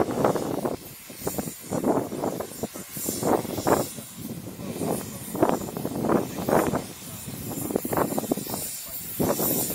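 Narrow-gauge steam locomotive working slowly into the station, with irregular exhaust beats over a steady hiss of steam.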